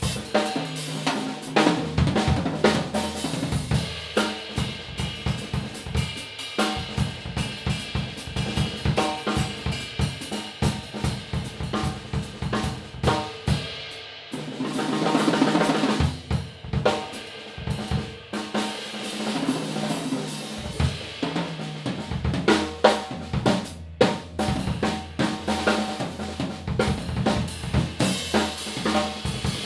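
Yamaha Oak Custom drum kit played in a continuous groove of kick, snare, hi-hat and cymbals, heard through room microphones. About halfway through, a roll swells up before the beat carries on.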